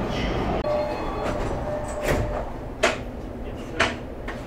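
Interior of a Toei Mita Line 6500 series subway car: a steady hum, broken by three short sharp knocks about two, three and four seconds in.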